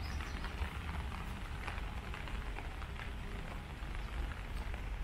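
Steady rain falling, with many small drops pattering, over a low rumble.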